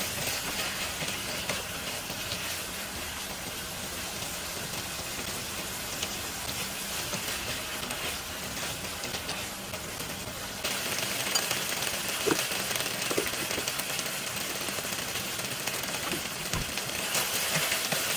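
Sliced beef and ginger sizzling in a nonstick frying pan while a wooden spatula stirs them: a steady frying hiss that gets louder about ten seconds in, with a few faint knocks of the spatula.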